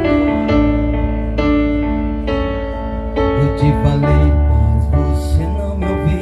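Instrumental passage of a song played by a band: electric-piano keyboard chords and melody over a steady bass, with drum hits coming in about three seconds in.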